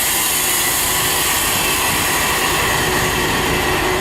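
Band sawmill running with its engine throttled up while the blade makes a pass through a log: a steady engine sound under a strong, even hiss from the cut.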